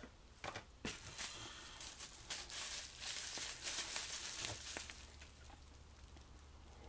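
Packaging rustling and crinkling as an item is unwrapped by hand, with a couple of light knocks in the first second; the rustling dies away after about five seconds.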